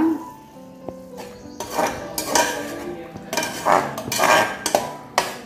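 A metal slotted spoon stirring a wet masala in an aluminium pressure cooker, scraping and clinking against the pot in repeated strokes. The strokes begin about a second and a half in.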